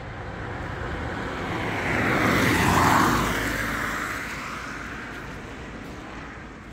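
A car passing on a wet road: the tyre hiss swells to a peak about three seconds in, then fades away.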